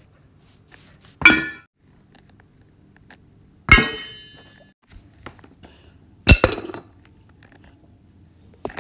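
Three sharp clinking knocks about two and a half seconds apart, the middle one ringing on and dying away over about a second, then a faint click near the end.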